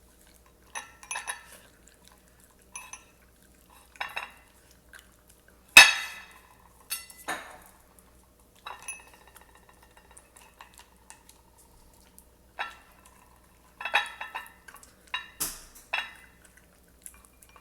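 Small dog eating from its food bowls: irregular clinks and knocks of bowl and dry kibble. The loudest is a sharp knock about six seconds in.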